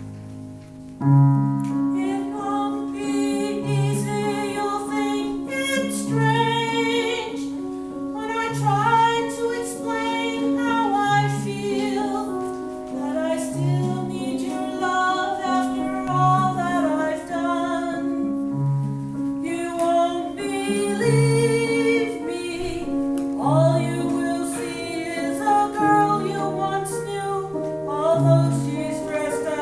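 A woman singing with a wavering vibrato, starting about a second in, over a piano accompaniment with a low note struck at a steady, even pace.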